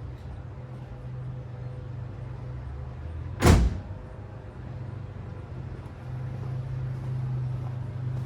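Small-block Chevy 350 V8 in a 1936 Chevrolet coupe running with a steady low drone. Its header connection has just been modified to cure an exhaust leak tick. A single loud thump sounds about three and a half seconds in.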